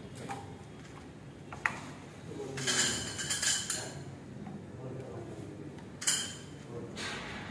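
Metal wardrobe-frame pipes clinking and knocking as they are handled and pushed upright into plastic joint connectors: a sharp click about a second and a half in, a stretch of rattling around three seconds, and another sharp knock about six seconds in.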